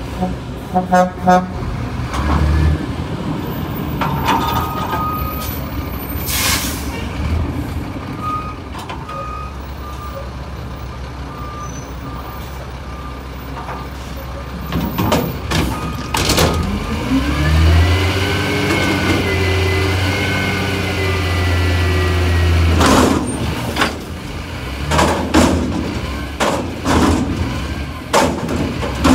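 Diesel front-loader garbage truck running, with short sharp air-brake hisses. About halfway through, the engine revs up and holds high for several seconds as the hydraulic forks lift a dumpster up over the cab.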